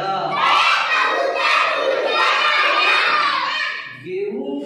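Many young children shouting together for about three and a half seconds, then breaking off, after which a single voice speaks again.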